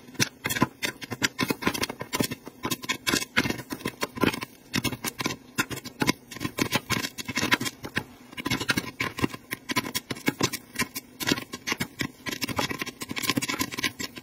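Corn kernels popping in an electric stirring popcorn maker under its clear plastic dome lid: many sharp pops a second, packed close together, in the thick of the popping.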